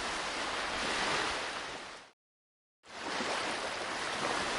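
Ocean surf sound effect: a steady wash of breaking waves that cuts off about two seconds in, leaves a short gap of silence, then starts again.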